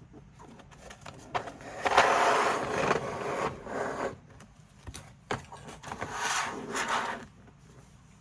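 Keycap set packaging being handled: two stretches of scraping and rustling with a few sharp clicks in between.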